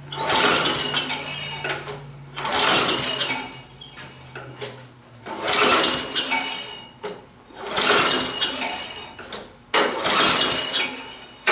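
Lawn mower's small engine being pull-started over and over, five pulls about two and a half seconds apart, cranking without catching. Gas is leaking from the carburetor; the owner thinks he may have flooded it by priming and that the carburetor needs work.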